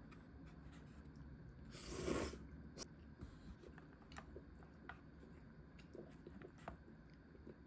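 Someone eating salt ramen with wontons: soft chewing and mouth sounds, with one louder rushing noise about two seconds in and scattered small clicks after it.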